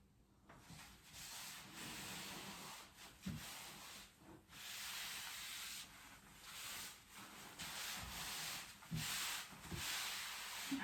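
Fiberglass wall covering being rubbed and smoothed flat against a glue-wet wall: a dry scraping swish repeated in strokes of about a second or two each, with a few soft knocks.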